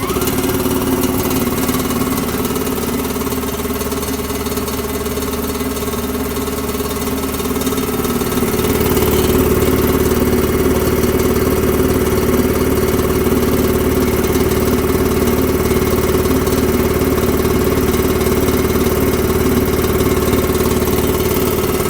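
Worthington 5 HP electric air compressor running steadily just after being switched on, a continuous mechanical hum with a strong steady tone. It gets a little louder about eight seconds in and then holds steady.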